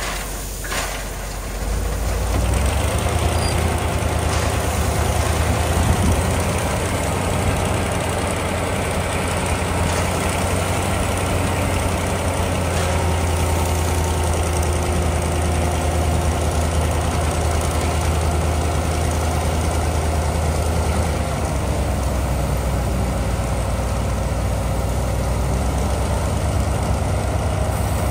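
Heavy construction-machine diesel engine running steadily with a deep drone that grows louder about two seconds in and shifts slightly lower about three-quarters of the way through.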